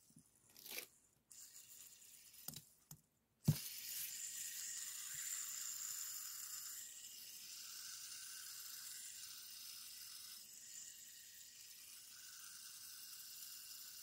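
Fidget spinner clicking a few times as it is handled, then flicked hard about three and a half seconds in and left spinning between the fingers. Its bearing gives a steady high whirring hiss that slowly fades.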